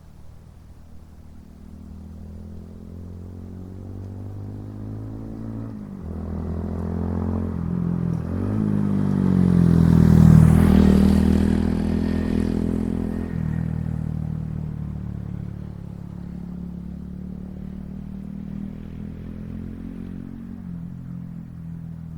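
Honda Monkey 125's single-cylinder engine and exhaust riding past. It grows louder, passes close about ten seconds in, and fades away. The engine pitch climbs and drops back at each gear change.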